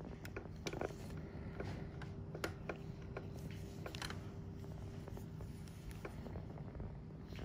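Steady low background hum with a faint held tone, broken by about a dozen soft, irregular clicks and crackles.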